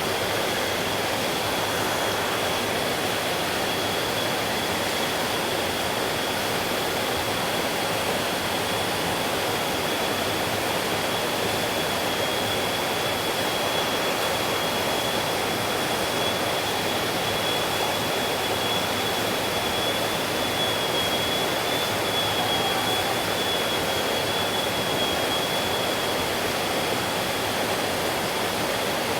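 Stream water flowing in a steady, even rush, with a thin steady high tone running through it.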